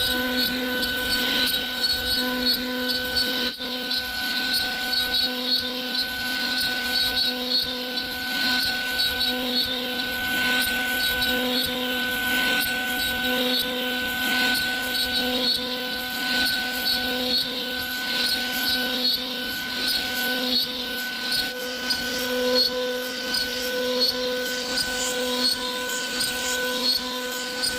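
CNC router spindle running at a steady whine while its bit carves a wooden panel, with a rasping cutting noise that swells and fades as the tool moves across the wood.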